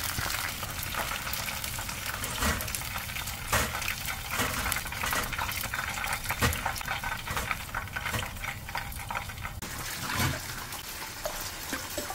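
Battered squid deep-frying in hot oil: a steady crackling sizzle with scattered pops and a few louder knocks. This is the first of two fries.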